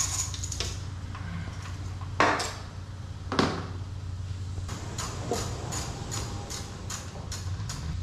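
Ratchet wrench clicking in quick runs of about three to four ticks a second as a 10 mm throttle-body bolt is backed out, with two sharper metal clanks about two and three and a half seconds in.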